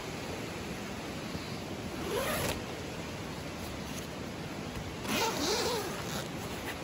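Tent zipper pulled in two short strokes, about two seconds in and again about five seconds in, over a steady background hiss.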